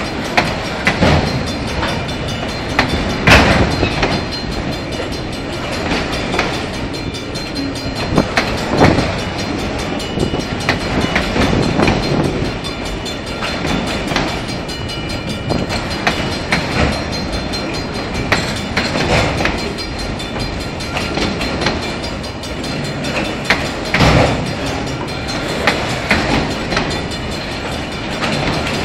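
Loaded autorack freight cars rolling past on steel wheels: a steady rumble and rattle of the train, broken by sharp clanks and clicks, one every second or few, as the wheels cross rail joints.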